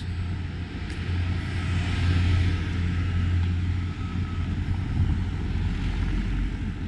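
A vehicle passing by, a steady low engine drone with tyre and road noise that swells about two seconds in and then fades.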